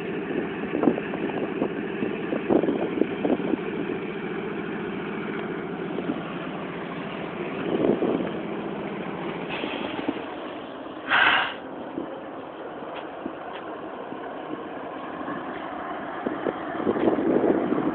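GE ES44AC diesel-electric locomotive's V12 engine running with a steady drone that weakens about halfway through, with a short burst of hiss about eleven seconds in.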